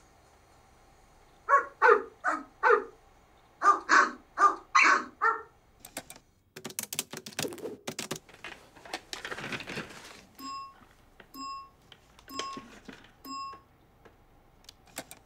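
A small dog barks in two quick bursts of sharp yaps, first four and then six. A run of clicks follows, then four short identical electronic beeps about a second apart: a new-message notification alert.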